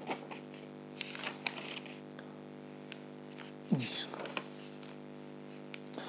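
Paper notes being leafed through in short rustling bursts with a few clicks, over a steady electrical hum, with a brief low murmur about two-thirds of the way through.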